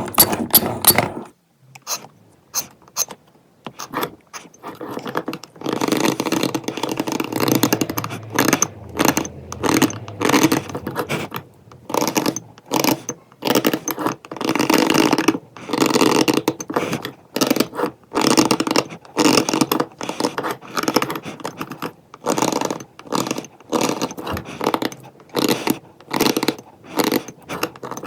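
Stone being carved by hand: a tool scraping over stone in repeated short strokes, each under a second or so, with brief gaps between them.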